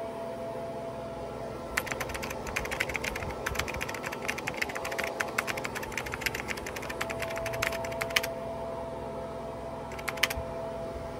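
Rapid computer-keyboard typing clicks from about two seconds in until about eight seconds, then a short burst of a few more clicks near the end, over the steady whir of a hand-held hair dryer.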